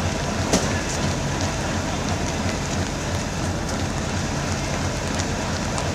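WDM diesel-electric locomotive running as the train departs, a low engine drone under a steady rushing noise, with scattered clicks and one sharper click about half a second in.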